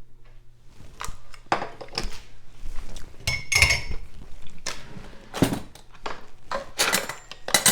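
A spoon clinks and scrapes against a Rock Crock stoneware dish as cake is scooped out and served, with a series of knocks and one brief squeaky scrape about halfway through.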